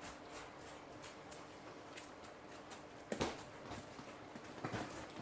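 Faint handling sounds: small scattered clicks and a soft knock about three seconds in, with a few more light knocks near the end, as a thin incense stick is fitted into a Banksia nut incense burner.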